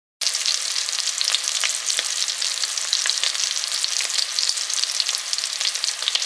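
Arabic paratha frying in hot oil in a square grill pan: a steady, loud sizzle with many small crackles, starting suddenly as frying begins.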